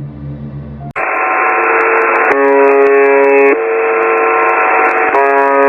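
Emergency alert attention signal: a loud electronic alarm tone that starts abruptly about a second in and alternates between two pitches, switching every second and a half or so. Before it, the tail of low rumbling music.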